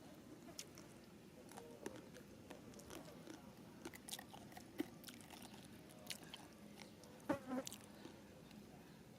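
Faint, scattered small clicks and taps over a low hiss, the loudest cluster about seven and a half seconds in.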